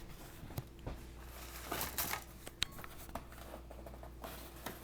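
Scattered light clicks and rustling from laptop parts being handled during a keyboard replacement, with one sharp click about two and a half seconds in.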